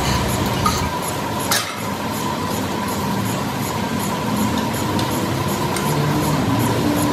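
Workshop machinery running steadily, a dense mechanical noise with a faint steady whine and a regular light ticking, and one sharp metallic clink about a second and a half in.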